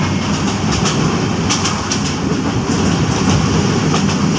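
Passenger train running along the track: a steady rumble of the carriages with irregular clicks and clacks from the wheels.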